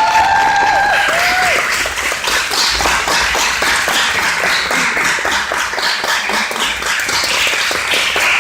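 Audience applauding: many hands clapping steadily, with a short held call or tone over the clapping in the first second or so.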